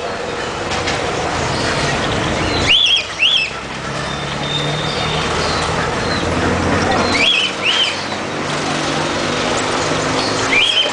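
Steady traffic and street noise, with a caged bird's short two-note chirp repeating about every four seconds, three times.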